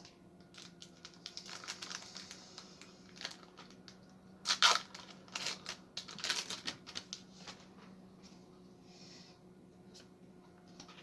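Foil Pokémon booster pack wrapper being crinkled and torn open, in irregular crackly bursts with the loudest rips about four and a half and six seconds in.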